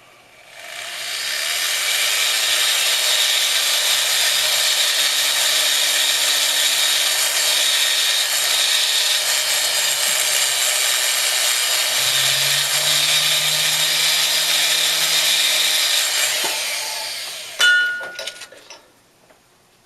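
Jeweler's rotary handpiece spinning a burr, cutting a stone seat into the gold prongs of a ring: a steady grinding hiss over a low motor hum that shifts in pitch about twelve seconds in. It stops a second before a short, sharp clink near the end.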